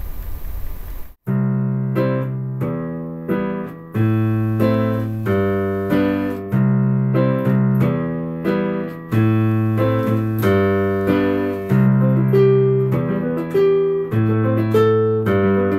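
A steady hiss of background noise cuts off suddenly about a second in, leaving a piano playing chords cleanly. The hiss is stripped out by a noise-reduction plugin (Bertom Denoiser Classic) being switched on.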